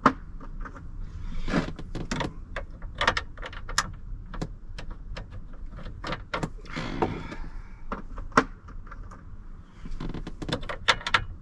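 Irregular metallic clicks and clinks of sockets and a socket wrench being handled and fitted onto a small bolt, with a brief rustle of rummaging about the middle: trying socket sizes to find the one that fits a 7 mm bolt.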